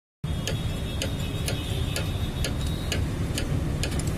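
Metal clicks from a spanner working the engine oil drain bolt on an autorickshaw, a sharp click about two or three times a second over a steady low rumble.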